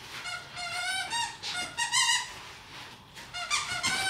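Squeaker in a plush dog toy squeaking again and again as two Staffordshire bull terriers bite and tug on it. A quick run of high squeaks, a pause of about a second, then more squeaks near the end.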